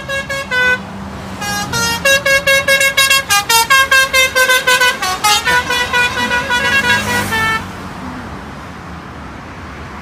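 A lorry's multi-tone 'telolet' musical horn playing a quick tune of short notes that change pitch several times a second, then stopping about three quarters of the way through, leaving a low traffic rumble.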